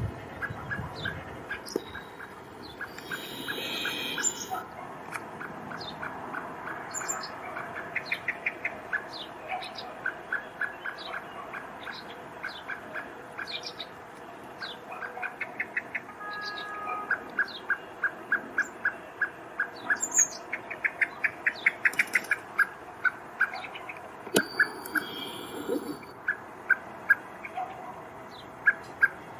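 Male common blackbird giving its alarm call, a parent searching for its fledgling: long runs of short, sharp chink notes, several a second, twice quickening into fast rattles. Thin higher chirps come in between.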